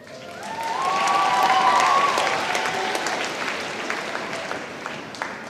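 Large audience applauding, swelling to a peak in the first couple of seconds and then slowly dying down.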